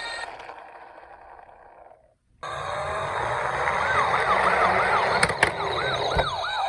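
Toy emergency vehicle's electronic siren. One siren fades away over the first two seconds. After a brief gap another starts, wailing rapidly up and down about three times a second, with two sharp clicks partway through.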